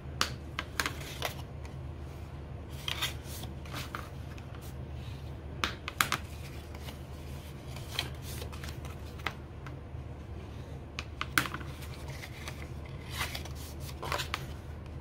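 Bone folder rubbing along score lines on cardstock, with the card stock rustling and being handled and folded: scattered short scrapes, rustles and light taps.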